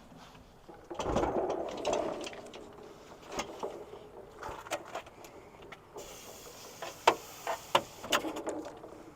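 Handling noise from a portable 12V fridge being loaded into a vehicle: a stretch of rustling, then a run of sharp knocks and clunks, the loudest a single knock about seven seconds in.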